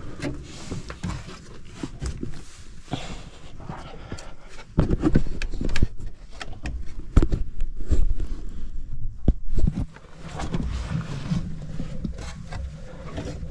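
A person breathing hard while clambering down a ladder through a tight mine opening, with irregular knocks and scrapes of boots and gear on the rungs and rock. The heaviest knocks come from about five to ten seconds in.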